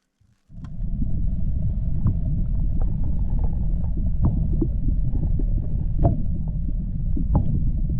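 Wind buffeting the microphone: a loud, steady low rumble that starts about half a second in, with scattered light clicks over it.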